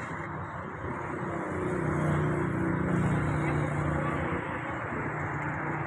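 An engine running with a steady low hum over constant background noise, growing louder about two seconds in and easing off after.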